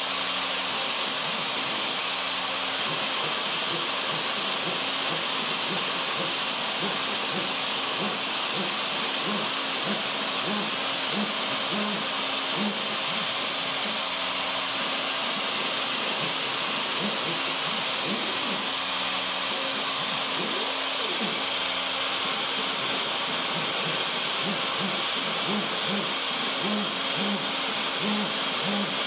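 A Craftsman 2 hp router on a CNC Mogul machine spins a 1/16-inch tapered ball-nose bit through cedar, profiling lettering. It makes a steady high whine and hiss, with a low hum that wavers underneath.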